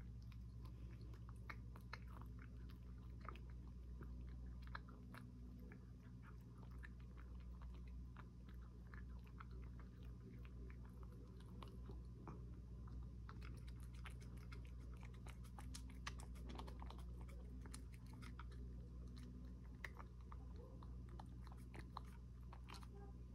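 A cat chewing and eating food from a wooden dish: a steady run of small, crisp clicks that gets busier about halfway through. A faint low hum runs underneath.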